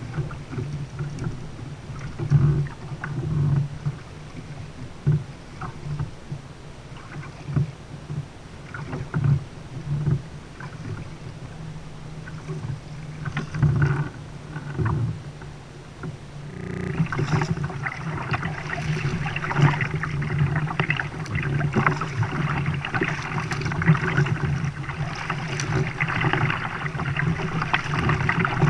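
Water lapping and scattered knocks against a fishing kayak's hull. About halfway through, a steady rush of water starts as the kayak is paddled.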